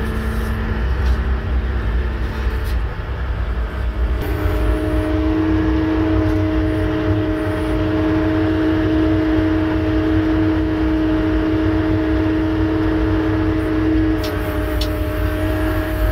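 Cummins 6BT 12-valve inline-six diesel of a Dresser 515 wheel loader running under way, heard from the cab as a steady low rumble. A steady whine joins it about four seconds in and holds.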